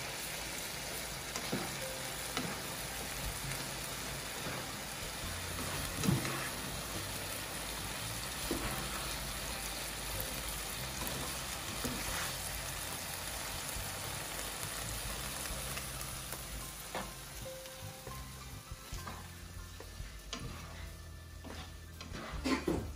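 Pasta in tomato sauce sizzling in a non-stick frying pan, stirred with a slotted spatula that knocks against the pan now and then. The sizzling dies down over the last few seconds.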